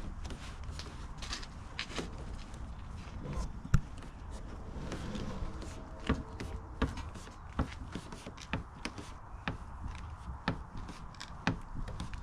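Irregular light clicks, taps and knocks of hands handling parts and tools, with one sharper knock a little before four seconds in.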